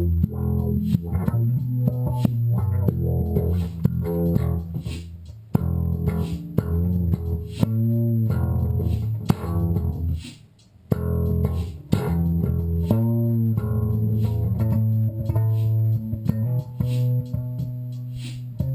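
Electric bass guitar playing a funk line of short plucked notes, with a brief break about halfway through.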